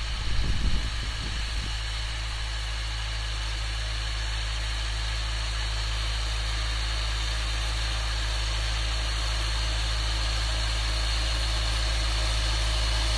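Volvo BM 2250 tractor's diesel engine running steadily under load while pulling a reversible plough through the soil, growing slowly louder as it approaches. A few brief low bumps in the first second and a half.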